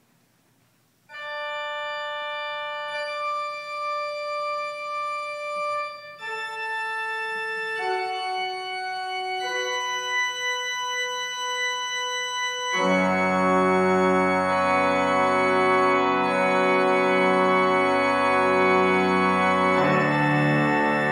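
Church organ playing long held tones that begin about a second in, with the notes changing every couple of seconds. About halfway through, a much louder, dense chord with deep bass pipes comes in and is held.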